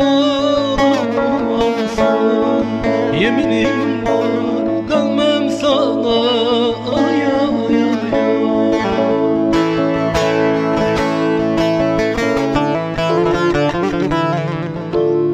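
Instrumental break of a Turkish folk song: a bağlama (long-necked saz) playing a plucked melody over an arranger-keyboard backing with a steady beat.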